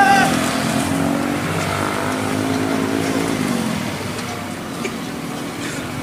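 A motor vehicle's engine running steadily, then dropping in pitch and fading about three seconds in as it passes by.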